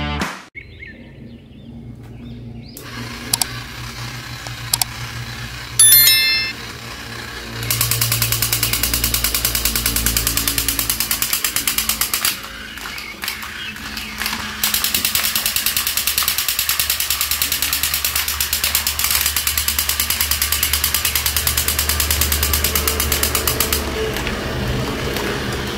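Battery-powered crawling soldier toys running, with a rapid, even mechanical rattle from about eight seconds in that breaks off briefly near the middle, then starts again.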